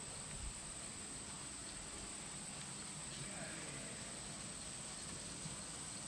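Faint field ambience with a steady high-pitched insect drone.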